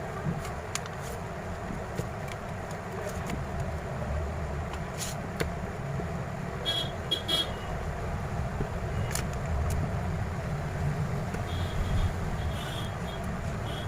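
Steady low rumble of background road traffic, with scattered light clicks and taps and a few brief high-pitched toots about halfway through and again near the end.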